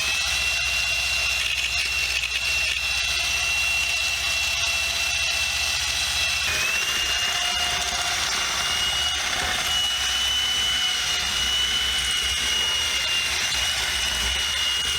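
Small electric power tool running continuously with a steady high whine, taking rust off the metal socket-set case. Its pitch dips briefly about halfway through and then holds.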